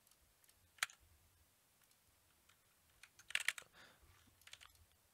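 Faint clicks of a computer keyboard and mouse. There is a single click about a second in, a quick run of clicks a little past halfway, and a couple more near the end.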